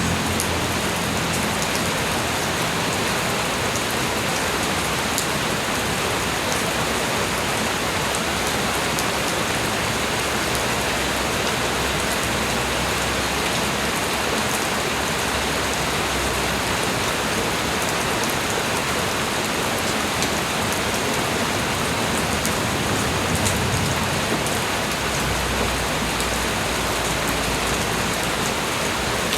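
Light rain falling steadily: an even hiss with scattered faint drop ticks.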